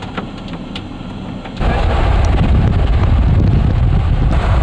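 Wind buffeting the microphone. It switches on abruptly about one and a half seconds in as a loud, heavy low rumble, after a quieter stretch with a few scattered ticks.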